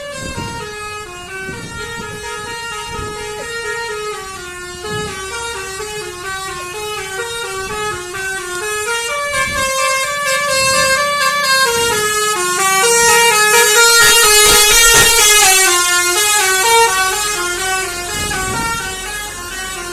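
Telolet musical horn of an Indonesian bus playing a tune: a run of short stepped notes moving up and down, several tones sounding together. It grows louder toward the middle and eases off near the end.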